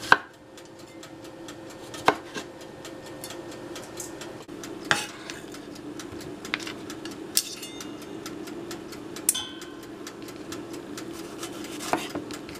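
Kitchen knife slicing strawberries on a wooden cutting board: about six sharp knocks of the blade striking the board, a couple of seconds apart, over a steady low hum.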